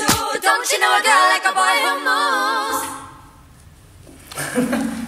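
Music with a sung vocal line, the voice wavering with vibrato on held notes, that cuts off suddenly about three seconds in. Voices come back in near the end.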